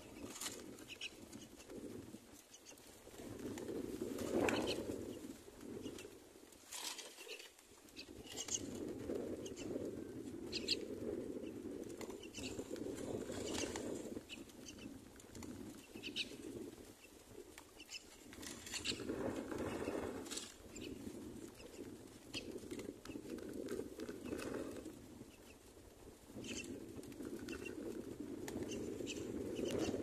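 Myna chicks shifting and fluttering in a nest of dry grass: bouts of rustling and feather brushing every few seconds, with scattered sharp little ticks and scratches.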